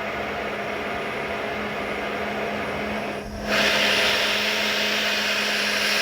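Ganiza countertop blender's motor running steadily with a constant hum. About three seconds in it dips briefly, then runs louder and brighter.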